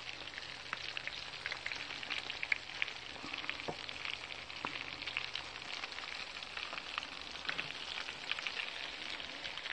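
Battered quail frying in a pan of hot grease: the oil sizzles steadily, with frequent small sharp pops and crackles.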